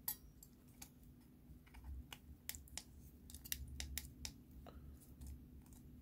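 Faint, irregular small clicks and taps of a plastic remote-control housing and its circuit board being handled and fitted back together, over a low steady hum.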